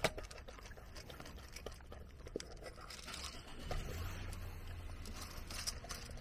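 A Shiba Inu eating dry kibble from a stainless steel bowl: a steady run of small crunches and clicks.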